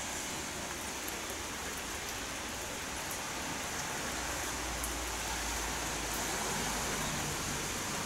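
Steady rain falling, a even hiss with scattered faint drop ticks, and a low rumble swelling in the middle.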